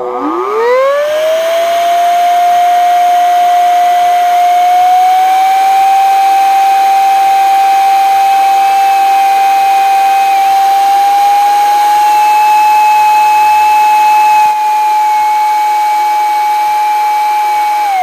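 Zola cordless air duster's motor spinning up in about two seconds to a loud high-pitched whine over a rush of air, then blowing steadily, its pitch stepping up slightly twice.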